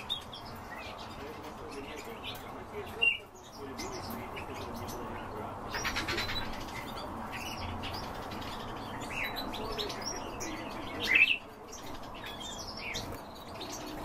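Many small cage birds chirping and calling together, short calls overlapping throughout, with a rapid trill about six seconds in and a few louder calls near three and eleven seconds.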